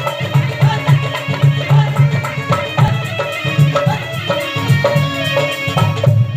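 Traditional folk music with a fast, steady hand-drum beat under melodic instrument lines.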